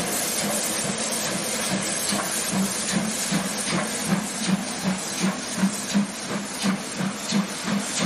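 Steam locomotive 01 0509-8 pulling away with its train. A steady hiss of steam escapes around the cylinders, and the exhaust chuffs become distinct about two seconds in, quickening to about three a second as it gathers speed.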